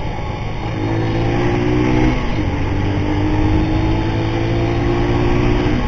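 Motorcycle engine pulling through the gears, heard from the rider's helmet camera over wind rush. The engine note climbs, drops at a gear change about two seconds in, then climbs again and drops once more near the end.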